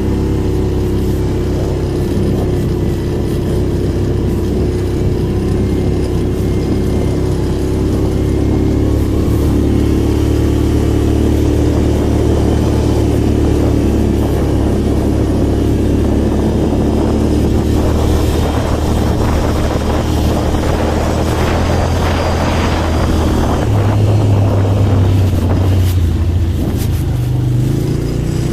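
ATV engines running under steady throttle, with the engine note stepping up about three quarters of the way through and shifting again near the end.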